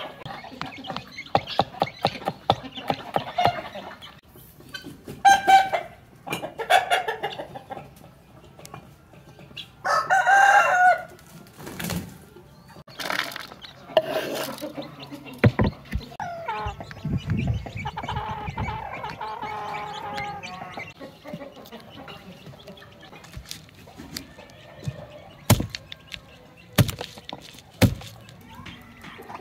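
Chickens clucking and calling, with a rooster crowing once, a long call about ten seconds in. A few sharp knocks come later on.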